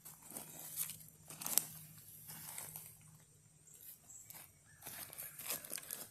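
Irregular rustling and crinkling with many short crackles, the sound of something being handled close up.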